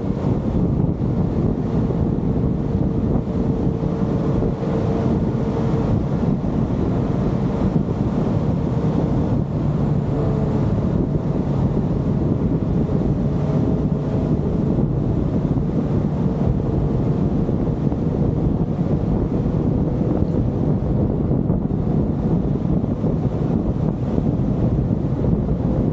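Steady rumble of a car driving along a road, with tyre and wind noise. A faint high whine drifts up and down in pitch throughout.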